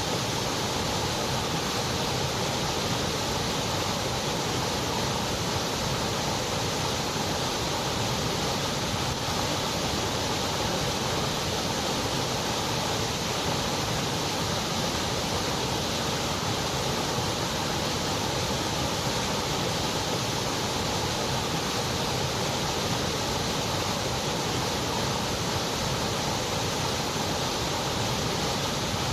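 Continuous white noise: a steady, even hiss that does not change.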